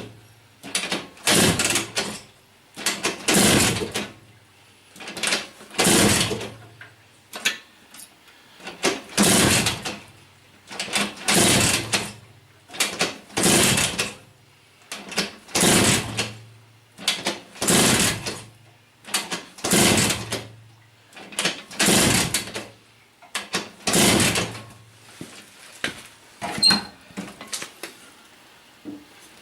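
Vyatka V-150M Elektron scooter's two-stroke single being kick-started over and over, about a dozen kicks roughly two seconds apart, each turning the engine over briefly without it catching and running.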